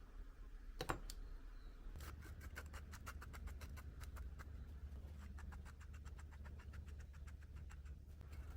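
A single sharp knock about a second in, then a run of light clicks and taps, several a second, over a low steady hum that comes in at the same time.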